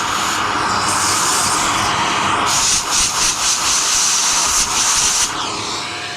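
Vacuum cleaner running, its nozzle sucking coffee residue out of an espresso grinder's burr chamber; the rushing air note shifts several times as the nozzle moves.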